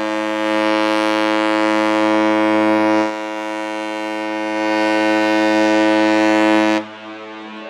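Cruise ship's horn sounding one long, low blast as a salute between ships. Its loudness dips about three seconds in and recovers, and the blast stops abruptly near the end.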